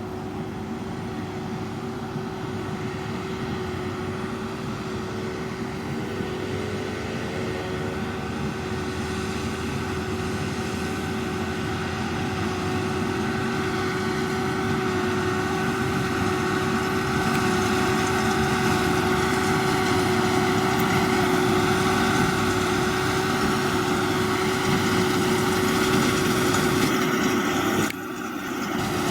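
John Deere 7530 tractor running steadily while pulling a working Massey Ferguson 2270 square baler, an even engine and machinery drone that grows gradually louder, dipping briefly near the end.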